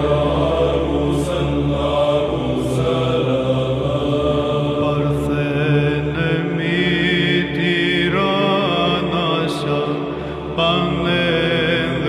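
Greek Orthodox Byzantine chant: a hymn to the Virgin sung in Greek in long melismatic lines over a steady low held drone (ison).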